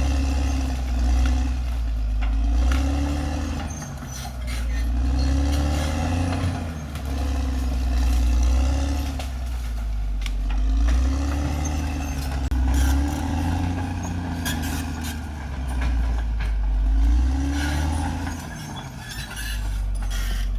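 Caterpillar D6R XL bulldozer's diesel engine working under load, its note rising and falling again and again about every two to three seconds, with scattered metallic clanks from the tracks and blade.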